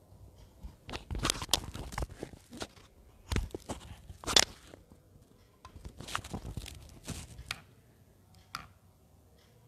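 Irregular rustling, crinkling and knocking sounds of things being handled: about a dozen sudden strokes spread over several seconds, the loudest about four seconds in, then a last one near the end.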